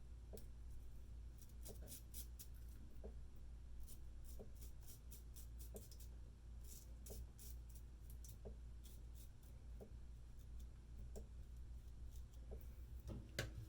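Straight razor with a Feather Pro Guard blade scraping through lathered stubble against the grain: faint, short scratchy strokes that come in clusters with pauses between.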